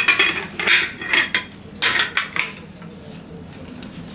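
Ceramic dishes clinking and scraping: a small bowl on a plate knocked and rubbed as food is picked from it, about five short clatters in the first two and a half seconds, then quieter.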